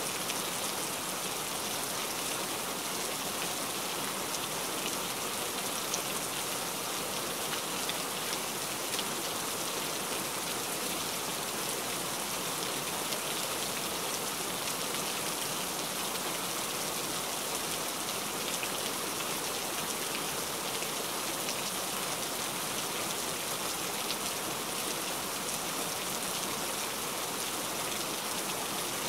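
Heavy rain falling steadily: an even hiss with scattered faint drop ticks.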